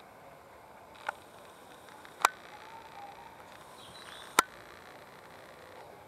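Three sharp clicks, about one, two and four and a half seconds in, the last two the loudest, over a faint steady outdoor background.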